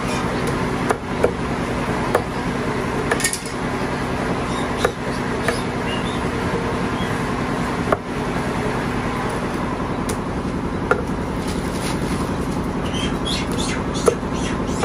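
Meat cleaver chopping whole chickens on a thick wooden chopping block: sharp single chops at irregular intervals, about nine in all, over a steady mechanical hum.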